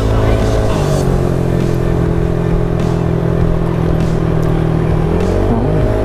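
Motorcycle engine running at a steady riding speed, its note dipping slightly about a second in and rising again near the end.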